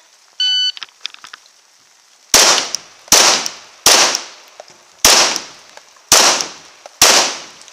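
A short electronic shot-timer beep starts the run. It is followed by six shots from a 9mm Glock 34 pistol, fired a little under a second apart, each with a brief ringing echo.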